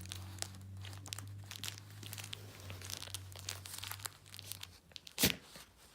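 A small dog (a Maltese) chewing and pawing at a plush toy with crinkle material inside, making a run of short crinkling rustles, with no squeak coming out. One louder thump about five seconds in.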